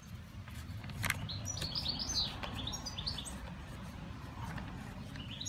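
Small birds chirping in short quick notes, over a steady low rumble, with a single sharp click about a second in.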